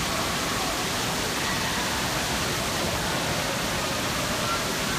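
Steady rushing and splashing of water in an indoor water-park pool hall, with a faint hubbub of distant voices.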